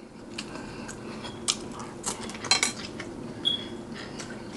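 Metal fork clicking and clinking against a plate of food: a few light, sharp clicks, then one short clink with a brief ring about three and a half seconds in.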